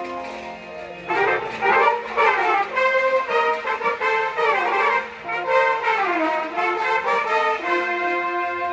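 Marching band brass section playing. A held chord gives way about a second in to quick runs rising and falling in pitch, and the band settles onto a sustained chord near the end.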